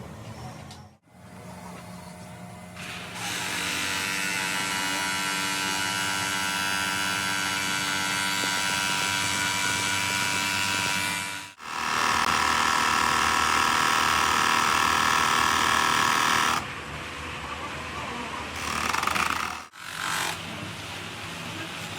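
Workshop machinery running steadily with a high whining hum, heard in several segments that cut off suddenly, the loudest in the middle.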